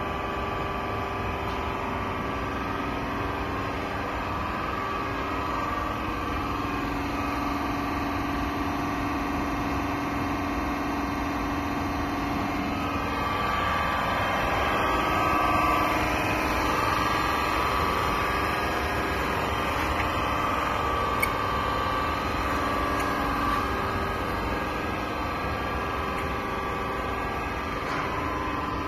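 Fan-impeller balancing machine running: a steady mechanical hum with several held whining tones, swelling a little about halfway through, with a single short click about two-thirds of the way in.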